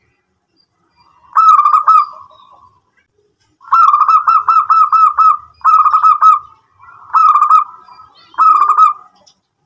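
Zebra dove (perkutut) singing: five bouts of quick, rolling coos, each bout a fast run of notes, the longest lasting about a second and a half.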